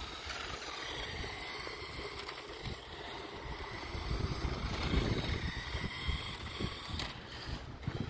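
Wind rumbling on the microphone in uneven gusts, with a faint, steady high whine from a small remote-control toy car's electric motor as it drives over asphalt.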